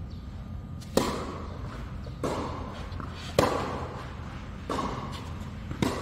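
Tennis rally: five racket-on-ball strikes about every 1.2 seconds, echoing in a large hall. The near player's hits are loud and sharp and alternate with softer, more distant returns from across the net. A steady low hum runs underneath.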